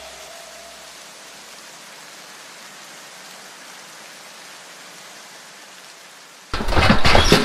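Background music fades out into a steady hiss. About six and a half seconds in, a steel Priefert cattle squeeze chute being worked starts clanging and rattling loudly.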